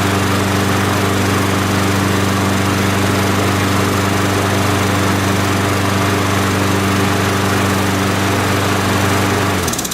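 Briggs & Stratton Quantum single-cylinder four-stroke engine on an Ariens push mower running steadily at a constant speed, freshly repaired with a new spark plug and ignition module and running well. It cuts off abruptly just before the end.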